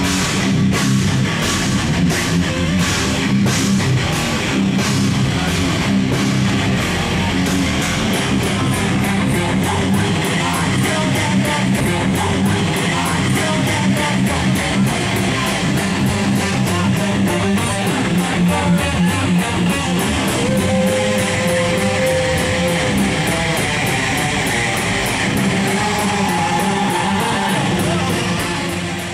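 Heavy metal band playing live: distorted electric guitars, bass and a drum kit. The drums beat heavily about twice a second, then break into much faster drumming about eight seconds in, and the sound fades out at the very end.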